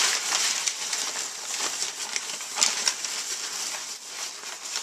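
Brown packing paper crinkling and rustling as a pig roots through it with its snout, with irregular small crackles and one sharper crackle a little past halfway.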